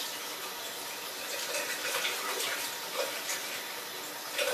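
Water running from a tap while hands are rinsed under it, a steady splashing stream.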